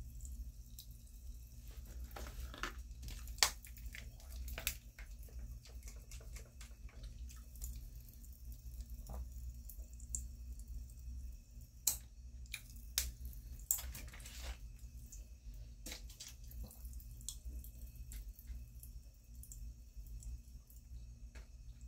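Wet mouth sounds close to the microphone: irregular clicks, pops and smacks of lips and tongue, a few sharper ones about three to five seconds in and again around twelve to fourteen seconds.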